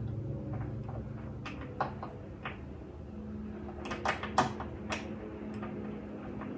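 Scattered light metallic clicks and taps of mounting bolts and a bracket being handled as the bolts are started by hand, over a low steady hum.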